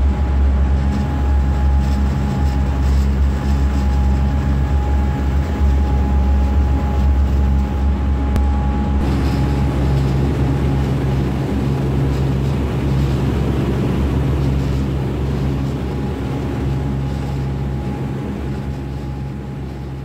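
Tour boat's engines running steadily at cruising speed, a deep constant drone with the wake's water rushing behind the stern, easing off slightly near the end.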